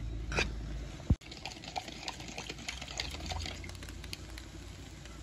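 A fork stirring stir-fried penne and vegetables in a frying pan, the fork clicking and scraping on the pan in quick small ticks over a faint hiss. One sharp knock about a second in.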